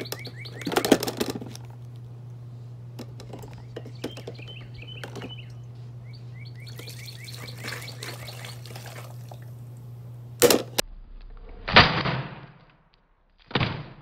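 A plastic Proctor Silex single-cup coffee maker being kicked apart: a sharp crack about ten seconds in, then a second later a loud thud with a short tail, and two smaller knocks near the end. Before the crack a steady low hum runs and stops with it, and birds chirp on and off.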